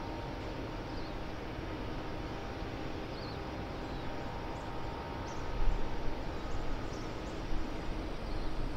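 Distant port ambience across open water: a steady industrial and ship machinery hum with a few faint bird chirps. A deeper, uneven low rumble comes in about halfway through.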